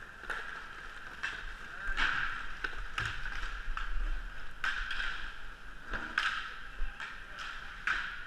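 Inline hockey skate wheels rolling on a hard sports-hall floor, swelling with each stride, with scattered sharp clacks of sticks and puck.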